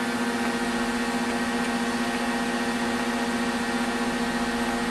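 Orbital TIG welding under way: a steady electrical hum with a strong low tone and evenly spaced overtones, over a constant hiss, from the welding arc and its power source.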